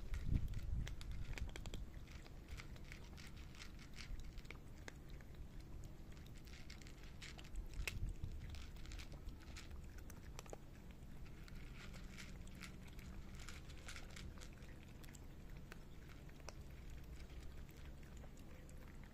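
Cats eating close to the microphone: a run of small irregular crunches and clicks as they chew dry kibble from their dishes, with a low rumble near the start and again about eight seconds in.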